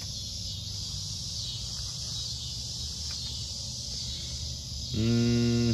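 A steady high-pitched hiss, like insects chirping, over a low hum. Near the end a short, louder, steady buzzing tone cuts in.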